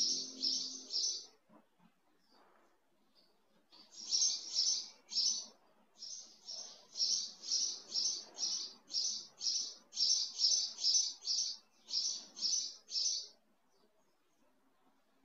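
A small bird chirping, one short high note repeated about three times a second in runs, with pauses of a couple of seconds between them.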